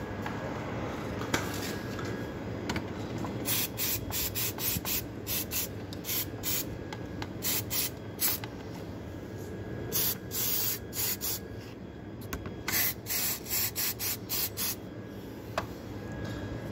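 Aerosol brake cleaner sprayed onto oily engine parts to degrease them, in many short squirts starting a few seconds in and stopping near the end.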